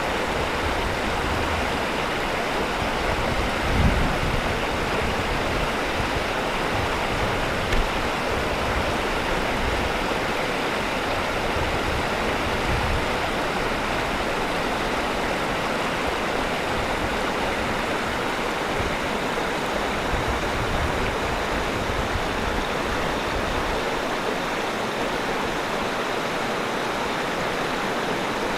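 Steady rush of flowing water, like a stream, with irregular low rumbles on the microphone.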